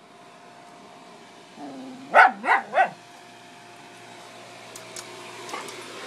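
A dog barking three times in quick succession, excited at a squirrel it is chasing. A faint steady hum runs underneath.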